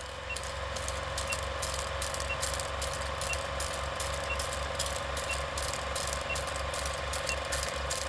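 Old film projector clattering and humming, with a short faint beep once a second: the sound of a film-leader countdown.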